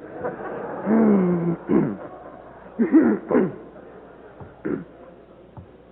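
Audience laughing: a wash of crowd laughter for about two seconds, with a few separate laughs breaking out again around three seconds in before it dies down.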